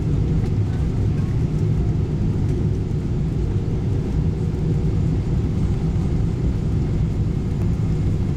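Steady, deep rumble of engine and airflow noise inside the cabin of a Boeing 777-300ER on final approach, heard from a window seat.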